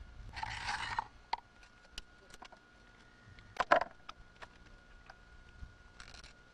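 A knife scraping and cutting through a fish on a wooden board as it is filleted: a short rasp near the start, a louder brief one midway and a fainter one near the end, with scattered small clicks between.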